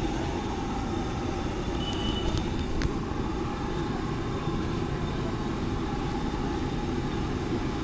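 Steady low rumble of street background noise, with a brief high tone about two seconds in and a single click just before three seconds.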